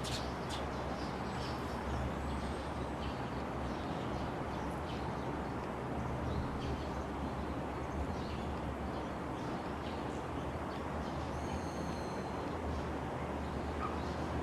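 Outdoor ambience: a steady low rumble and hiss with scattered short bird chirps, and a brief high call with several tones near the end.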